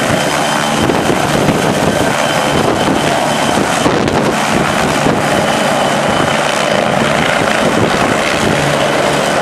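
Helicopter rotors and engine running close by, loud and steady, with wind buffeting the microphone.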